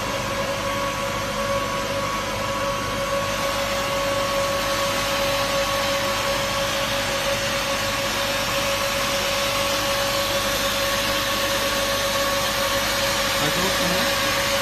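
A vertical plastic colour mixer running, with a steady hum and two constant whining tones, over a hiss as plastic granules run out through its stainless-steel discharge chute.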